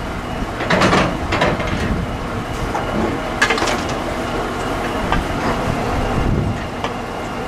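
Metallic clanks and rattles from steel railway hopper wagons, in two bunches about a second in and near the middle, with lighter knocks later, over a steady mechanical rumble.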